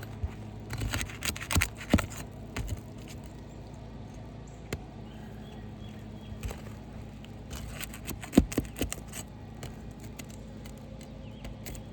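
Scraping and sharp clicks of nails being worked out from under a roof shingle, in two bursts: one about a second in and another around eight seconds in. These are undersized nails that are hard to pull out.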